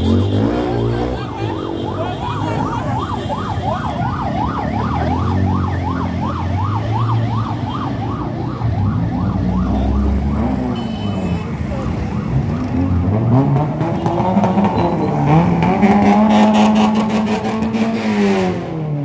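An electronic yelp siren sweeping rapidly up and down, about three times a second, over the running engines of passing cars and motor scooters; the siren stops about halfway through, and engines rev up and down as vehicles drive past.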